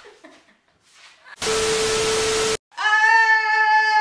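A loud burst of hiss lasting about a second, then, after a brief break, a long steady high-pitched note held without wavering.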